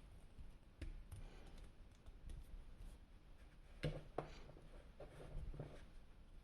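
Quiet handling of a plastic action figure and its packaging. There are scattered sharp plastic clicks, the loudest pair about four seconds in.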